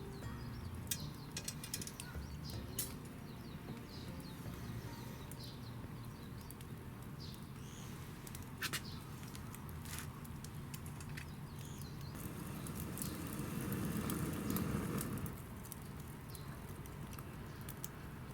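Wood fire burning in a small camping wood stove: scattered sharp crackles over a steady low rumble, growing louder for a couple of seconds about fourteen seconds in. Faint bird chirps sound now and then.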